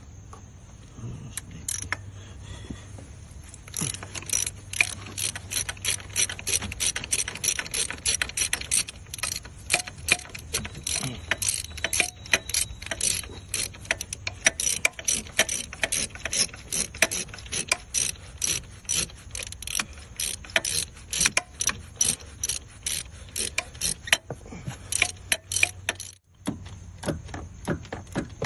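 Hand ratchet and socket clicking in rapid short strokes, a few clicks a second, as a tight alternator mounting bolt is worked loose with little room to swing the handle. The clicking pauses briefly near the end.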